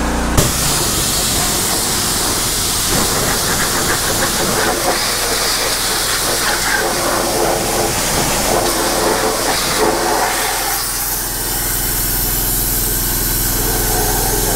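Pressure washer's high-pressure water jet blasting rust and sludge off a cast-iron Chrysler 440 engine block and the wet concrete, a loud steady hiss over the washer's running motor. The spray hiss starts about half a second in and eases somewhat near the end.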